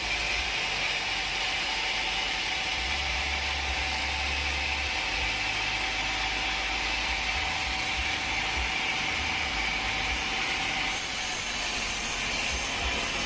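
Sawmill saw running steadily through a large log, a continuous hiss and whine, with a low rumble that turns uneven about five seconds in.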